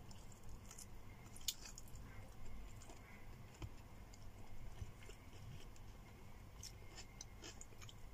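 A person chewing and biting food by hand with the mouth close to the microphone: many short soft mouth clicks, with a sharper one about a second and a half in.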